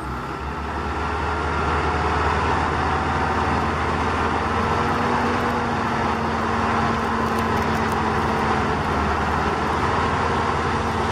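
Steady whirring of a radio-controlled tracked dump truck's electric drive motors and gearbox as it crawls through mud, growing louder about a second or two in.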